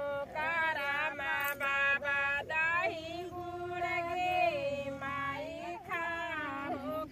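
Women and girls singing a Karma song (karma geet) together in long held notes, high voices with a second, lower voice line beneath. There are no drums.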